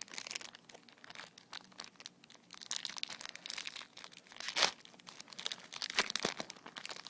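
Foil wrapper of a Yu-Gi-Oh! Generation Force booster pack crinkling and tearing as it is opened by hand, in irregular crackles that are loudest about four and a half and six seconds in.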